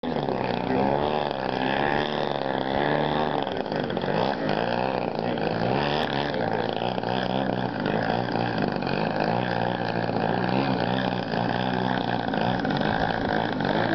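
Engine and propeller of a radio-controlled aerobatic model plane running in flight, the pitch rising and falling again and again as the throttle changes and the plane passes through its manoeuvres.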